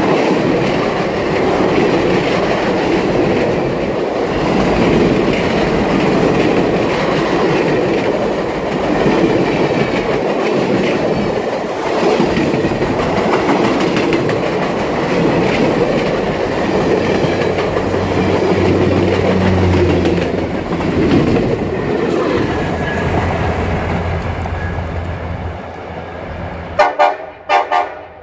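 Stainless-steel passenger coaches rolling past close by: a steady rumble of wheels with clickety-clack over the rail joints, easing off toward the end. In the last second or so, several short blasts of a diesel locomotive's horn.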